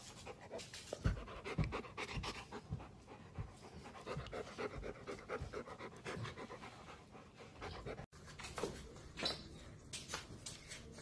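Golden retriever panting in quick, rhythmic breaths, with a few low thumps in the first couple of seconds.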